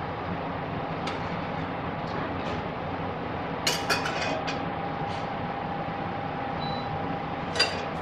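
Steady rushing background hum in a restaurant kitchen, with a few sharp clinks of cooking utensils against metal cookware about halfway through and again near the end.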